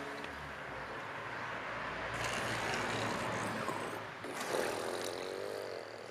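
A passing vehicle, its noise swelling for a few seconds and then fading, with a short wavering tone near the end.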